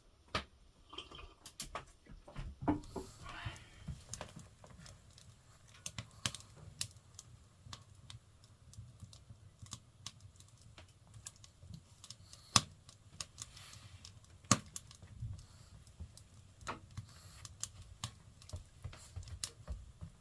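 Firewood burning in a wood stove, crackling with irregular sharp pops and snaps over a low steady rumble, two louder pops a little past the middle.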